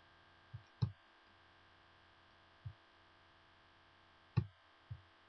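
Faint steady electrical hum with five short, soft knocks; the loudest come just under a second in and about four and a half seconds in.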